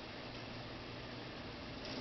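Steady low background hiss of a small room, with no distinct sounds standing out.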